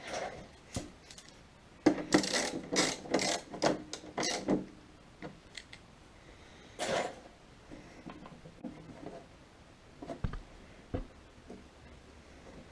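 Hand tools and metal parts clicking and clattering during bolt work on a motorcycle pannier hinge, with a dense run of knocks and short metallic ringing about two to four and a half seconds in, then a few scattered knocks and low thumps.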